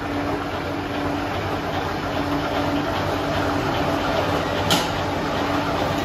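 Electric scrap-wire stripping machine running as a thick, very hard HDPE-sheathed cable is forced through its rollers and blade, a steady mechanical rumble with a faint hum. One sharp crack comes a little before the end.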